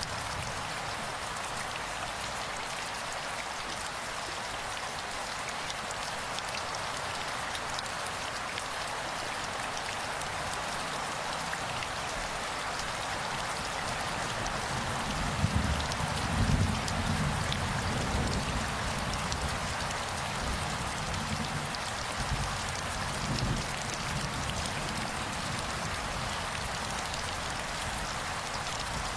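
Steady rain falling on wet ground, an even hiss of many drops, with a few low thumps about halfway through.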